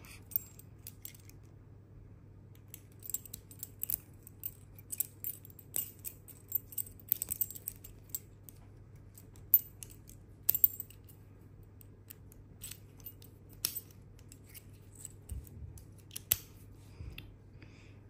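Padlock keys and a steel split key ring clicking and jingling as they are worked off the ring by hand: many small, sharp metallic clicks, thickest in the first half, with a couple of louder clicks near the middle.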